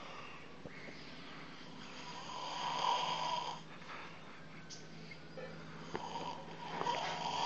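A person snoring: two long snores about four seconds apart, each swelling in loudness before it stops.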